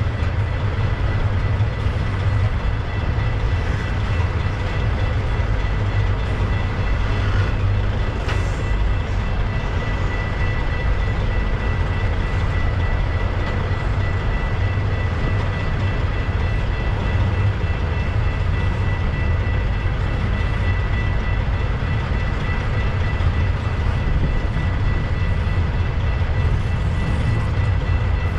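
CN double-stack intermodal container train passing slowly over a temporarily repaired level crossing. The well cars' wheels make a steady low rumble, with a thin steady high tone over it.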